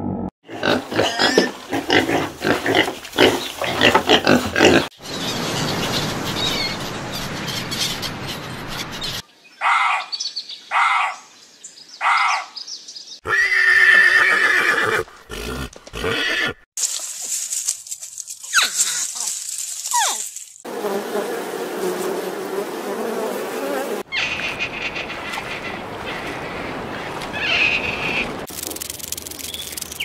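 A string of different animal calls and noises cut one after another, each lasting a few seconds and ending abruptly; one segment holds four short separate calls.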